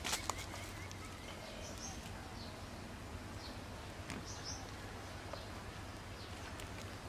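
Faint outdoor ambience: a few short high bird chirps over a low hiss, with occasional soft clicks and crackles as a small fire catches in dry grass.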